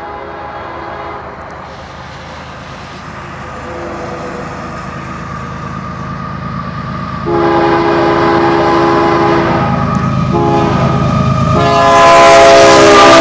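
BNSF diesel freight locomotive's air horn sounding for a grade crossing as the train approaches, several notes at once. The horn is faint at first, then a long blast about seven seconds in, a short one around ten seconds, and the loudest blast near the end, with the rumble of the locomotives growing under it as they reach the crossing.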